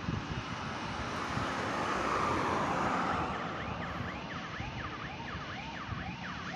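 Emergency vehicle siren yelping, its pitch sweeping up and down about twice a second from about halfway through, over a steady noisy background.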